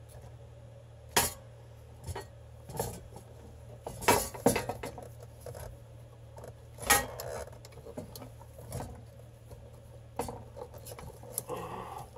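Scattered plastic clicks and rattles of wiring-harness connectors and clips being handled and worked loose under a car's dashboard, over a steady low hum.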